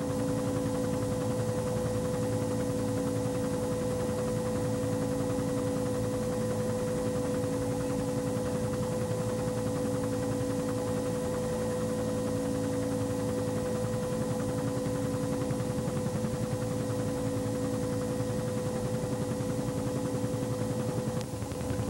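Steady aircraft cabin noise: an even engine drone with a constant whine, heard from inside the aircraft.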